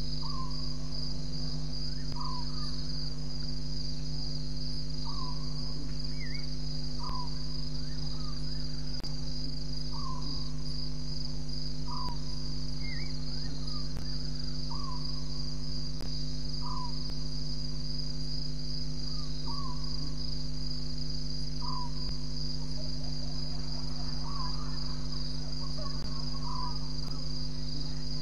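Night insect chorus: a steady high cricket trill, with short falling calls repeated every second or two, over a low steady hum.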